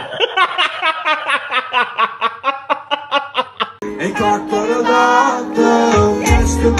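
A man laughing in quick repeated 'ha' sounds, about four or five a second. About four seconds in it cuts abruptly to a song with held notes and a deep bass beat.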